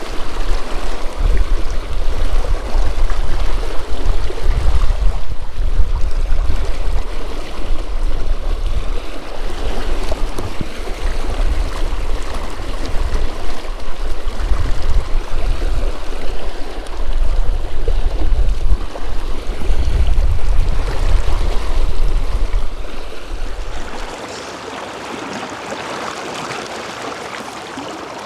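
River current rushing and splashing around a wading angler's legs, with heavy, uneven low rumbling under it. About four seconds before the end the rumble drops away and a quieter, steady flow of the river remains.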